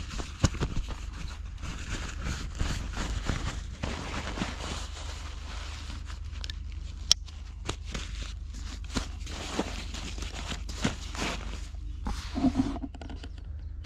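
Poncho fabric and its pouch rustling and scraping as they are handled, with a plastic side-release buckle snapping shut about seven seconds in.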